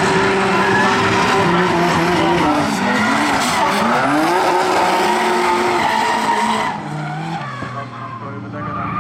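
Drift cars in a tandem battle: engines revving up and down under load with tyres skidding and squealing. The sound drops sharply about seven seconds in.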